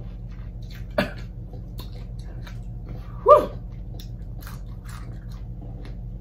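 Close-miked eating sounds of a person working at a fried chicken wing: faint lip smacks and mouth clicks over a steady low hum, with one sharp click about a second in. About three seconds in comes a short, high, gliding vocal cry, the eater reacting to the heat of the hot sauce.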